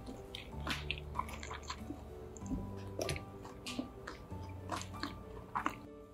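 Close-miked chewing of a mouthful of food, with scattered short crunchy clicks, over background music.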